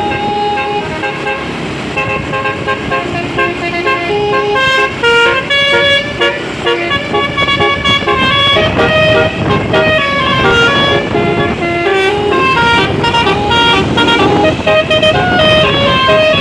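Multi-tone 'basuri' telolet bus horns playing a fast tune of short held notes, several notes sounding together, without a break.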